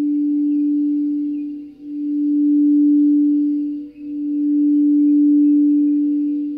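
Large frosted quartz crystal singing bowl rimmed with a mallet, holding one steady low hum with a fainter overtone. It swells and fades in slow waves about every two seconds.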